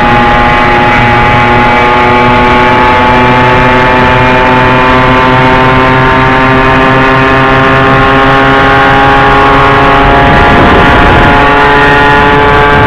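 Two-stroke Puch moped engine running steadily at cruising speed, loud and close. About ten seconds in, a second moped's engine briefly sounds alongside it.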